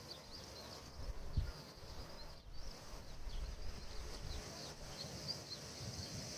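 Faint birds chirping, heard as scattered short high chirps over an irregular low rumble.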